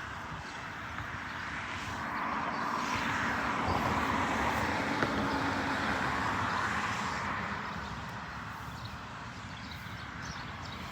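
Road traffic noise: a vehicle passing, its noise swelling to a peak about four seconds in and then fading away, over a steady low rumble.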